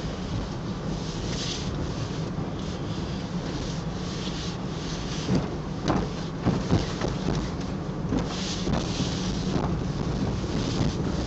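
Steady drone of a car driving, heard from inside the cabin, with rustling of a shiny PVC rain suit coming and going. A few sharp knocks come in about halfway through.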